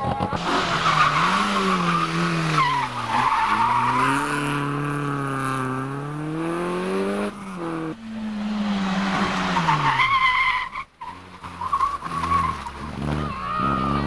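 Rally cars driven flat out through a tarmac bend, engines revving up and dropping back through gear changes, with tyres skidding on loose grit. The engine note breaks off abruptly about eight seconds in and again near eleven seconds as another car takes over.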